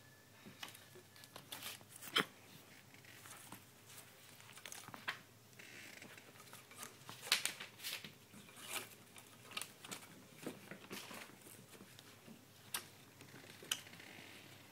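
A puppy chewing and tugging at soft toys and shifting in its bed: faint rustling with irregular sharp clicks, and a longer stretch of rustling about six seconds in.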